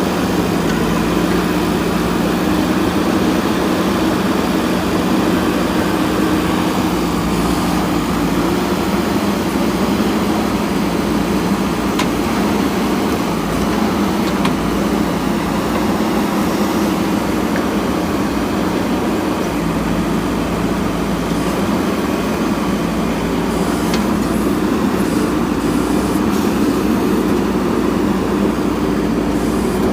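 A JCB backhoe loader's diesel engine runs steadily at a constant pitch, with a few faint clicks.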